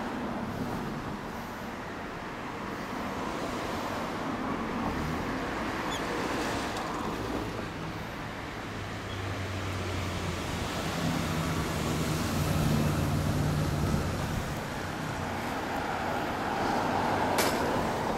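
Steady motor-vehicle noise, with an engine hum that grows louder about ten seconds in and fades again a few seconds later, and one sharp click near the end.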